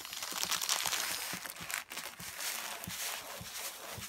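Crinkling and rustling of the clear plastic film on a diamond painting canvas as it is handled and moved, a steady run of quick crackles.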